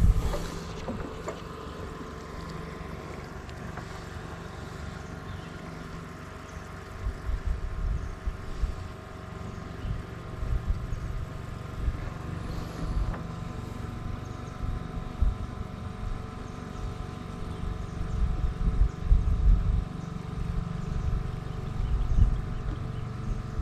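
Small boat engine running steadily, with irregular low rumbles of wind on the microphone.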